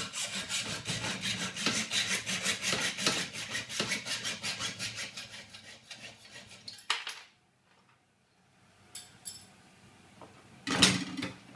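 Hacksaw cutting thin steel trunking lid clamped in a bench vise: quick, even rasping strokes that fade and stop after about six seconds. Near the end come a few knocks and clatter as tools are put down and picked up.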